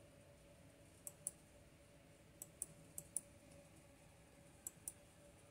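Near silence with a faint steady hum, broken by four quick pairs of short, sharp clicks.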